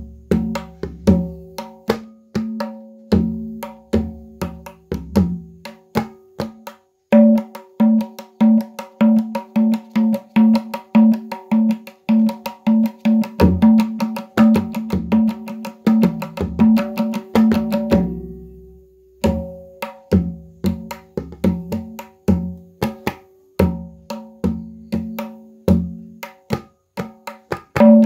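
Tabla pair played by hand: quick rhythmic strokes on the dayan ringing at one steady pitch, mixed with deep bass strokes on the bayan. The strokes come faster and denser through the middle, stop for about a second about two-thirds of the way in, then start again.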